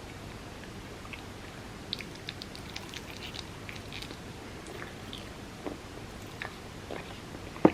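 Close-miked chewing and biting into a dessert, with small crisp clicks through the middle, then one sharp knock near the end.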